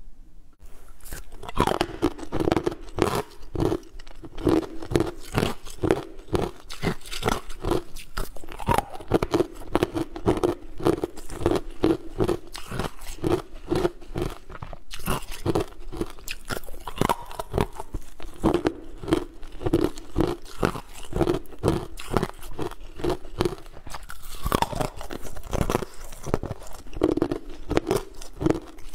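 Clear ice cubes bitten and crunched close to a clip-on microphone: a dense, continuous run of sharp cracks and crackles as the ice is chewed.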